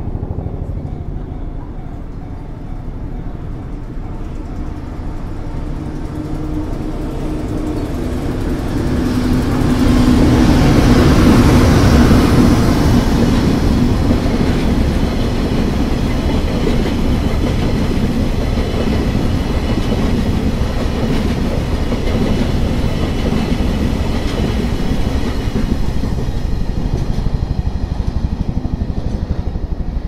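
Freight train of tank wagons passing over a level crossing. The rumble builds to its loudest about eleven seconds in as the head of the train goes by, then the wheels clatter steadily over the rail joints as the tank cars roll past, easing off near the end. The level crossing bell rings throughout.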